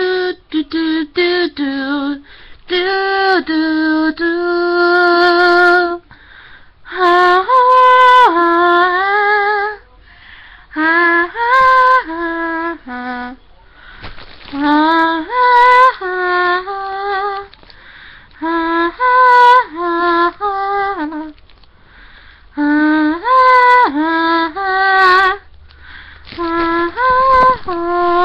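A young female voice singing a melody unaccompanied, in short phrases of held notes with brief pauses between them.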